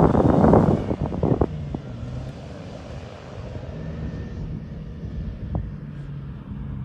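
Wind buffeting the microphone for about the first second, then a low, steady engine hum whose pitch shifts slightly, with a few faint clicks.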